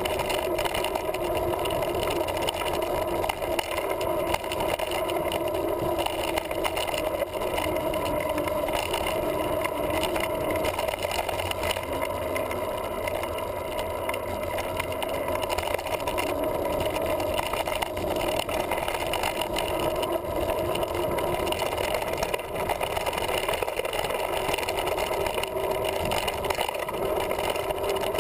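Steady rumble of mountain bike tyres rolling over a dirt trail, with wind buffeting a handlebar-mounted GoPro, and small knocks here and there as the bike goes over bumps.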